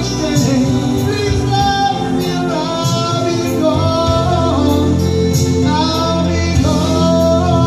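A man singing a slow love ballad into a handheld microphone over a recorded backing track, holding long notes that slide between pitches, with a soft, regular beat underneath.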